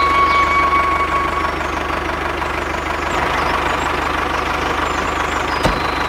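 Steady tractor-like engine running sound of a miniature toy tractor, with a high steady tone that fades out about a second and a half in.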